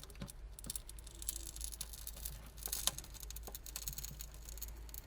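Scattered small clicks and crackles of cracked digitizer glass being pried away from its softened glue on a tablet, over a faint steady hum.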